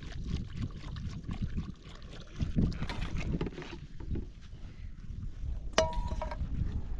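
Wind rumbling on the microphone while a metal bowl and utensils are handled, with scattered light clinks. About six seconds in comes one sharp metal clink that rings briefly.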